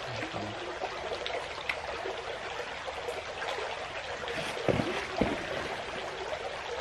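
Small rocky creek running steadily, water trickling over stones.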